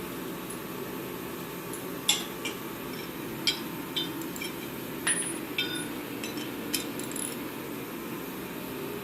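Metal tools clinking and tapping against the heater's metal parts while the fuel nozzle is being removed: about seven sharp, ringing clinks spread between two and seven seconds in.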